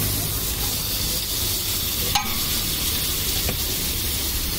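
Cubes of butter sizzling and melting on a large hot flat griddle (tawa), a steady frying hiss. A single sharp clink about two seconds in.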